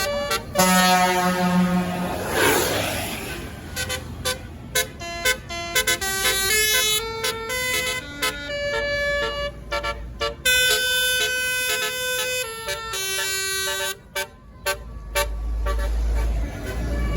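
Bus telolet horn, a multi-tone air horn, playing a quick run of changing notes as a melody. A short rush of noise comes about two and a half seconds in, and a deep rumble rises near the end.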